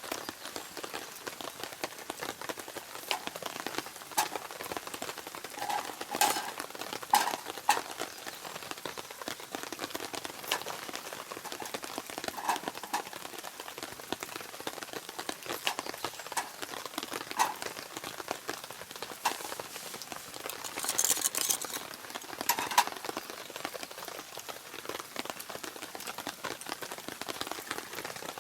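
Steady rain falling, with individual raindrops tapping close by at irregular intervals, some sharp and loud. A brief hiss comes about three-quarters of the way through.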